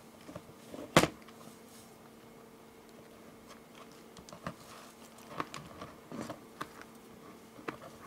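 Fingers handling beaded nylon bracelet cord while tying a sliding knot: soft rustles and light clicks, with one sharp click about a second in.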